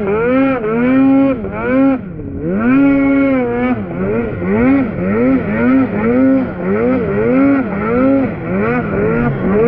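Snowmobile engine revving up and down over and over, about two throttle pulls a second, with a short drop about two seconds in and then a longer held pull: the sled being ridden hard through deep snow.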